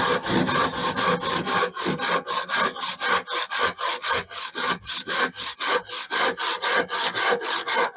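Hand saw cutting through timber in rapid, even back-and-forth strokes, about five a second.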